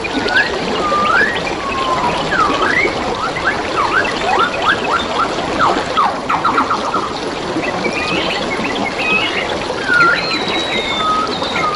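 Several wild birds whistling and calling over a steady trickle of flowing water, with a quick run of clipped notes about five to seven seconds in.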